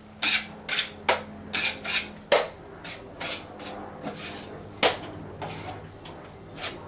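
A 3-inch steel drywall knife scraping quickset setting compound onto a drywall ceiling patch in short strokes. The strokes come about two a second at first, then grow sparser and softer, with one sharper click about two-thirds of the way through.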